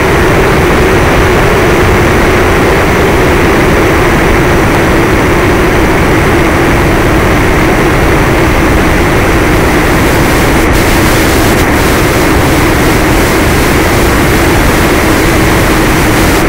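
Electric motor and propeller of an FPV model plane droning steadily under power, with a wavering mid-pitched whine over a heavy rush of wind noise, picked up by the plane's onboard camera microphone.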